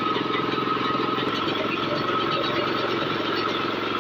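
Small petrol engine running steadily under load, driving a grinding mill, with a steady high whine over the engine's rapid firing.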